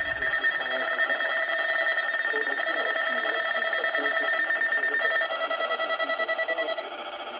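Several NOAA weather radios sounding their alert alarms at once with a shrill, rapidly pulsing beep, triggered by a Required Weekly Test. One alarm stops about five seconds in, and more cut off near the end, leaving a quieter tone.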